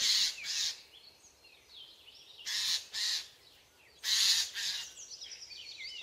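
Eurasian jays giving harsh, rasping alarm chatter in three short bouts, the scolding they raise at a cat. Faint chirps of smaller birds sound between the bouts.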